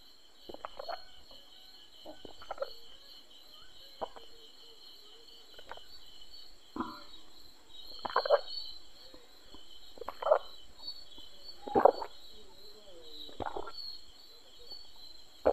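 Crickets chirping steadily, with short sounds recurring every one and a half to two seconds that stand out above them.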